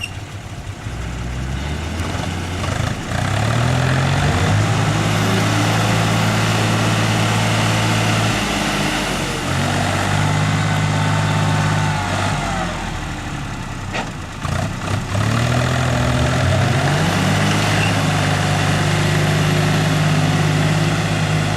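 Off-road vehicle's engine revving hard under load. It climbs in pitch, holds high for several seconds, eases off twice and climbs again.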